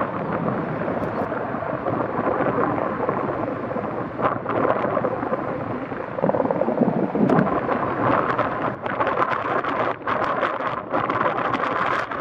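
Sikorsky CH-54A Skycrane heavy-lift helicopter flying past, its rotors and twin turbine engines making a steady rough rumble, with irregular crackling in the second half.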